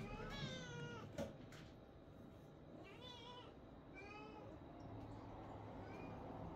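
A domestic cat meowing three times in the first part, the first call long and wavering in pitch, with a faint short meow near the end. Calls of the kind the owner answers as begging for food it has already had.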